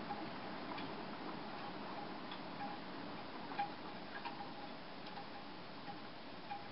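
Bamboo wind chime knocking in the wind: short hollow wooden clacks at irregular intervals, over a steady rush of wind.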